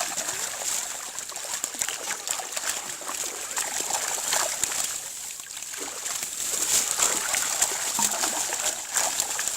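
Pond water splashing and sloshing in irregular bursts, stirred up by people working a fishing net in the water.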